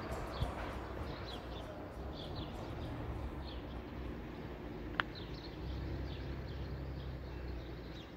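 Small birds chirping in short, repeated high calls over a steady low outdoor rumble, with a single sharp brief sound about five seconds in.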